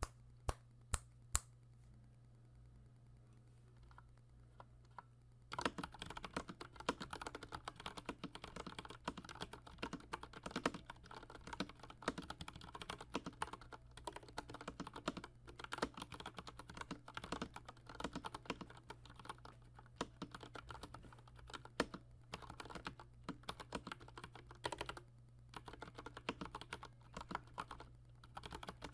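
Typing on an IQUNIX L80 mechanical keyboard with Cherry MX Red linear switches and PBT keycaps. A few single key presses come first, then fast, continuous typing from about five seconds in.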